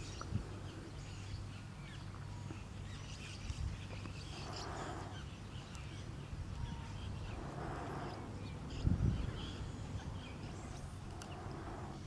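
Spotted bowerbird giving harsh, hissing calls at its bower: three calls of about a second each, a few seconds apart, over a steady low hum. A brief low thump comes about nine seconds in.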